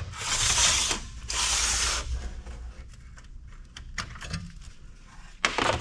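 Hand disassembly of an old Dell desktop PC: two scraping strokes of under a second each, scattered light clicks, and another scraping stroke near the end.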